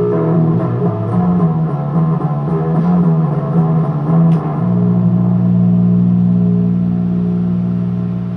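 Electric guitar playing a run of picked single notes, then about four and a half seconds in a low note is struck and left to ring out, slowly fading.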